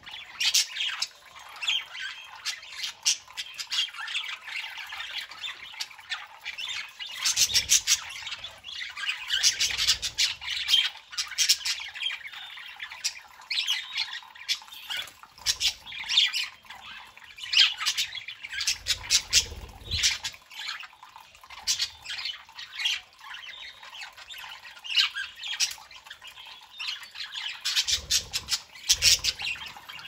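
A group of budgerigars chattering: many rapid short chirps and calls overlapping, coming in busy bursts every few seconds.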